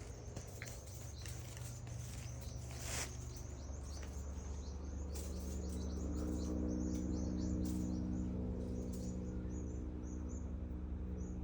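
A flock of small birds chirping rapidly in short, high calls, alarm chirping at a rat chasing them, thinning out over the last few seconds. From about halfway a low vehicle engine hum grows steadily louder and becomes the loudest sound.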